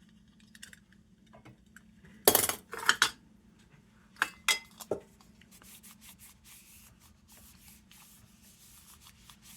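Metal parts of a Dietz No. 2 Blizzard lantern clinking and knocking as they are handled, about five sharp clinks in the first half, the loudest two close together about two seconds in. A faint rubbing follows.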